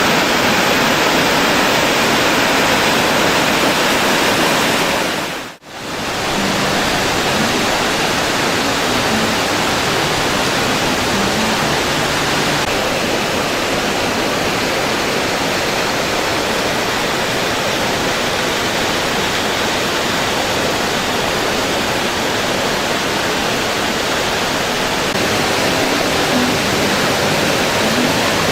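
Waterfall rushing steadily, a dense even wash of falling water. The sound cuts out for a moment about five and a half seconds in, then comes back as before.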